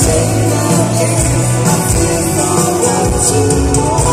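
Live band playing: male vocals over keyboards, electric guitar and held bass notes.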